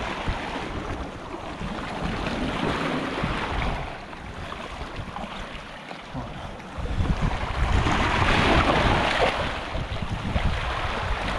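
Small sea waves washing over rocks and foaming back off them, with wind rumbling on the microphone. The wash softens for a few seconds, then swells louder about seven seconds in.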